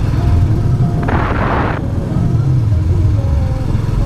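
Royal Enfield Classic 350's single-cylinder engine running steadily under way, its low thumping exhaust carrying throughout. A short sharp hiss cuts in about a second in and stops abruptly just under a second later.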